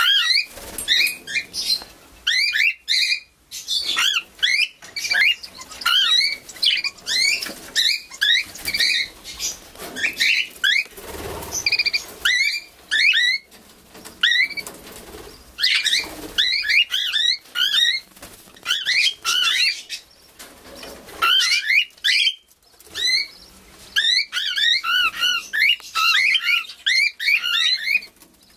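Young cockatiel chirping: quick, short rising chirps repeated several times a second in bursts, with brief pauses. A short rustle comes about two-fifths of the way through.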